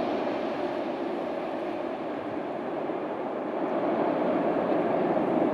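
Distant jet engine noise from a Boeing 747 rolling down the runway after landing: a steady rush that eases slightly about two seconds in, then builds again.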